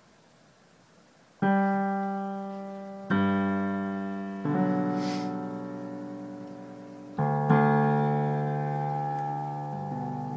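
Piano playing a slow minuet-like passage: about six chords struck one at a time after a short silence, each left to ring and fade. A brief hiss about five seconds in.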